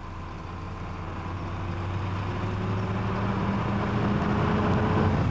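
Tandem-axle dump truck's engine running under way, growing steadily louder and rising slightly in pitch as it picks up revs.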